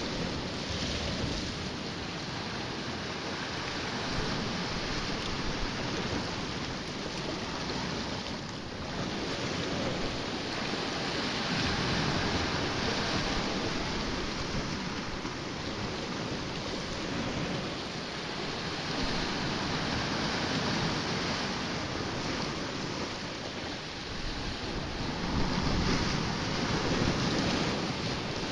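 Sea surf washing against a rocky shoreline: a continuous rushing that swells and eases every several seconds, with wind buffeting the microphone.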